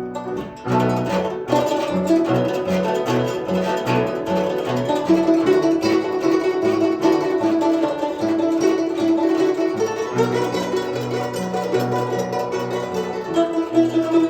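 Solo guzheng playing: quick plucked notes over repeated low bass notes. In the middle a melody note is held and shimmers as a tremolo.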